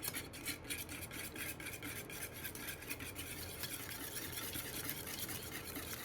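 Wet waffle batter of yogurt, milk, egg yolk and butter being whisked in a bowl. The whisk makes quick, steady, rhythmic scraping strokes against the bowl.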